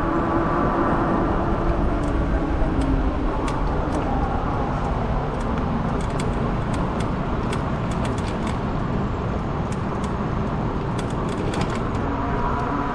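Wind and road noise while riding a fat-tire e-bike along a road. A faint whine dies away in the first few seconds and comes back near the end, with scattered light ticks throughout.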